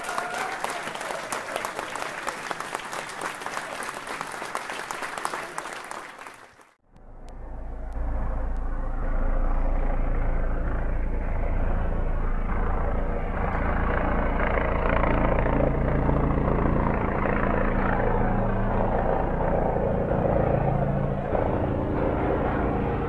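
A dense crackling hiss like applause cuts out about seven seconds in. It is followed by the steady low hum and rumble of an aerial drone's rotors in flight, with several slowly shifting hum tones.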